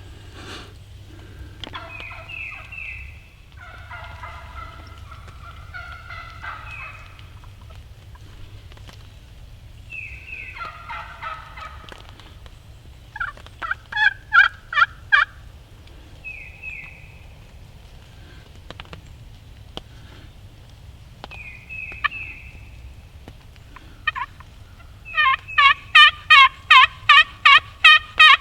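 Turkey calling: a quick run of loud, evenly spaced notes about four a second around the middle, and a longer run of about a dozen near the end, with fainter calling between.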